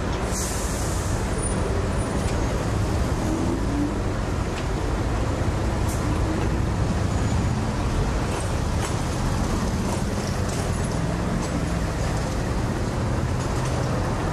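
Road traffic in a jam: the engines of queued cars and a lorry idling and creeping forward, a steady low rumble.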